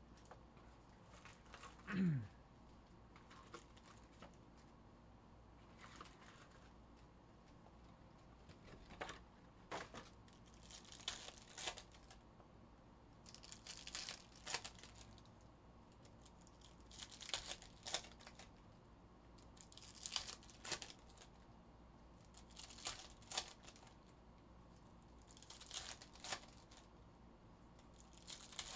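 Foil wrappers of Donruss Optic basketball card packs being torn open and crinkled by hand, a burst of tearing every two to three seconds. About two seconds in comes a single short, low sound that falls in pitch.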